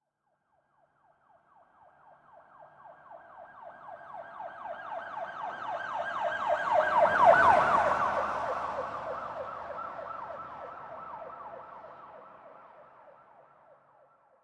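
Police car siren sounding a rapid yelp. It grows louder as the vehicle approaches, passes about halfway in with a brief rush of road noise, then fades away until it is gone near the end.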